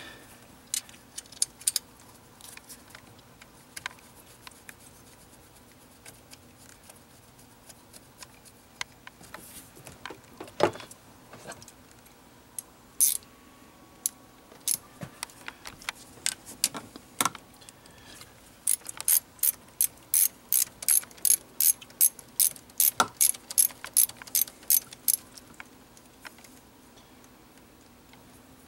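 Hand ratchet wrench clicking as it turns down the fuel rail bolts on a 2.4 L Ecotec engine. There are scattered clicks and a few knocks at first, then a steady run of about three clicks a second for several seconds past the middle.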